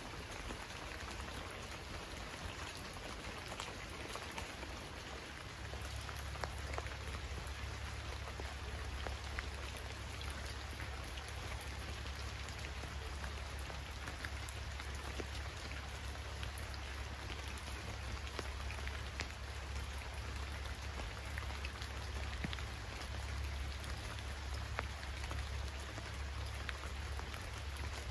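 Steady rain falling, an even hiss with scattered individual drop impacts, over a low rumble that comes up about five and a half seconds in and holds steady.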